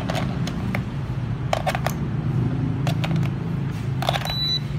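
Plastic clicks and clacks of AA batteries being pressed into the battery compartment of a toy drone's remote controller, in a few short clusters over a steady low background hum. A short high beep near the end.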